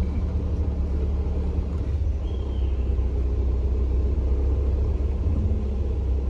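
Van engine and road rumble heard inside the cabin, a steady low drone as the van crawls along slowly.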